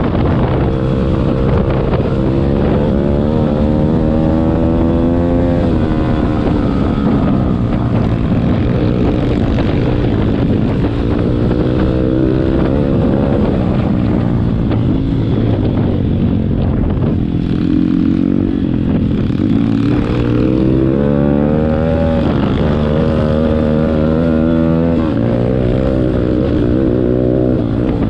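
Pit bike's single-cylinder four-stroke engine (MRF 140 RC Big) under way, its pitch repeatedly climbing as it revs up and dropping back at the gear changes and throttle lifts.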